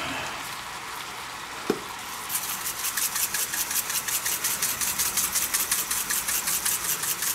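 Seasoning shaker shaken rapidly over a wok of stir-fried noodles, its contents rattling about six times a second from about two seconds in. Underneath is a steady faint sizzle from the wok, with a single sharp click shortly before the shaking starts.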